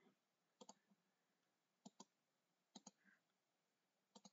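Faint computer mouse button clicks, each a quick press-and-release pair, four times in about four seconds, as the mouse is used to paint in MS Paint.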